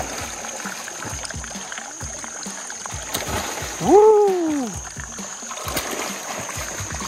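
Background music with a beat over water splashing. About four seconds in, a single note swoops up and back down; it is the loudest sound.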